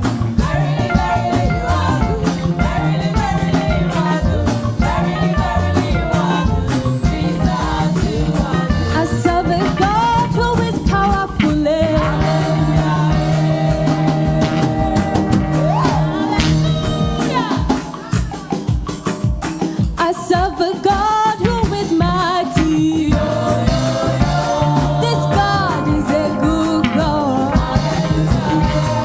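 Live gospel praise music: voices singing over a steady drum beat, with the beat dropping back briefly a little past the middle.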